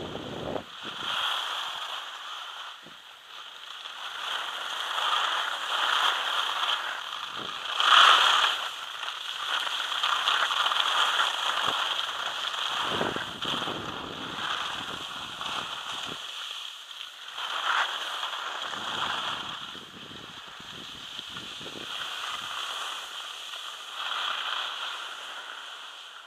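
Hissing scrape of sliding down a packed-snow ski piste, rising and falling with the turns and loudest about eight seconds in, with a few short gusts of wind buffeting the microphone.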